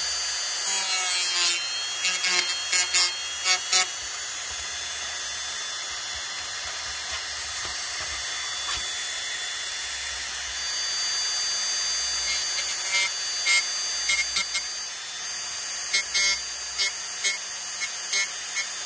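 Dremel rotary tool running at high speed with a steady high whine, its small cut-off disc grinding plastic flash off a model kit's saucer part in short, sharp bursts of contact. The bursts come in clusters near the start and again through the last several seconds.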